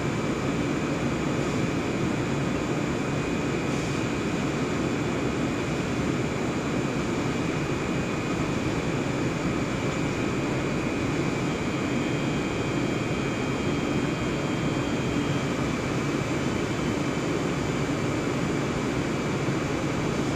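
Blown-film extrusion line running HDPE film: a steady rush of machinery and blower air with a thin, constant high whine, and a faint extra whine for a few seconds around the middle.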